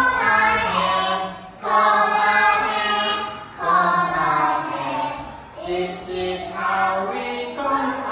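A group of young children chanting a song together in unison, in short phrases about two seconds long with brief breaks between them.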